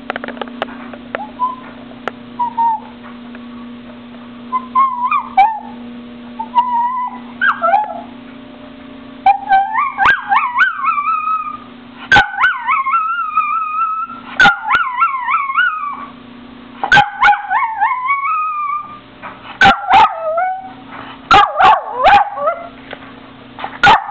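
Jack Russell terrier whining and crying, high wavering whines that come in short bits at first and then grow longer and almost unbroken about ten seconds in, with sharp yips between them. The dog is crying in frustration at guinea pigs that it cannot reach.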